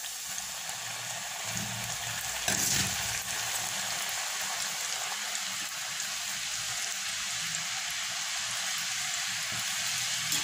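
Nimki dough strips deep-frying in hot oil in a kadhai: a steady sizzling hiss, with a brief louder surge about two and a half seconds in.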